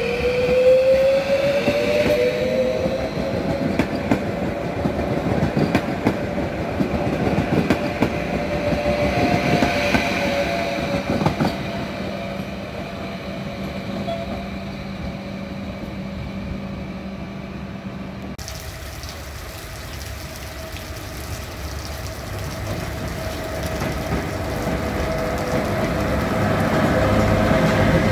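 HŽ series 6112 electric multiple unit moving through a station: its traction drive whines in tones that glide up and down in pitch, over wheel and rail noise. About two-thirds of the way in, the sound changes abruptly to a locomotive-hauled passenger train rolling past, its rumble growing louder near the end.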